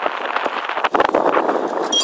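Riding noise from a camera carried on a moving bicycle: steady wind and road noise with a dense, irregular rattle. A bell rings once right at the end.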